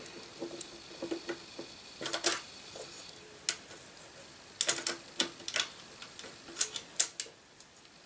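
Small sharp clicks and metallic taps as a screwdriver backs out the screw locking a DVD optical drive in a slimline desktop PC's metal case, the clicks coming in quick clusters in the second half.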